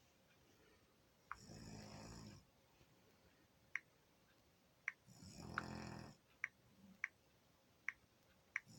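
Snoring: two drawn-out snores about three and a half seconds apart, each lasting about a second, with short sharp clicks in between.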